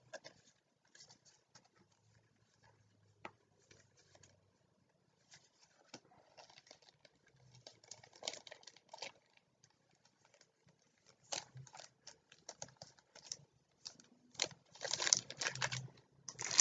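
Faint, intermittent rustling and light clicks of trading cards and a foil booster pack being handled, in scattered short bursts that grow busier in the second half.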